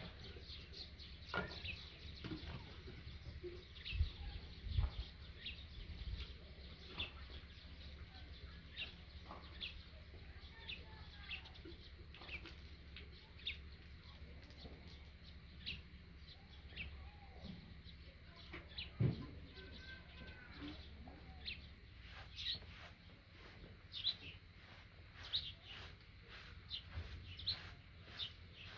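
Small birds chirping in short, scattered calls. About two-thirds of the way in, a short hand broom starts sweeping a packed dirt yard in even swishes, about two strokes a second.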